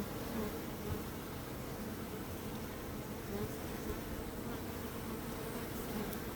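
Bees buzzing steadily, a continuous hum of many wings with individual bees swelling briefly louder as they pass close.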